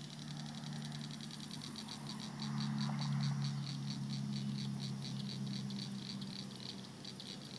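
Evening chorus of high-pitched pulsing animal calls, about four pulses a second, over a steady low hum that swells about two and a half seconds in and then slowly fades.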